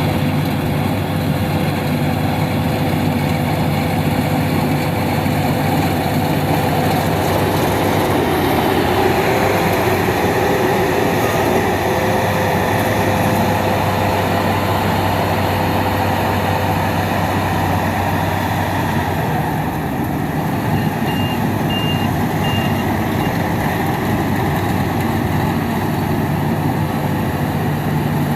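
Rice combine harvester running steadily, its engine and threshing machinery making a continuous heavy drone. A short run of high beeps sounds about three-quarters of the way through.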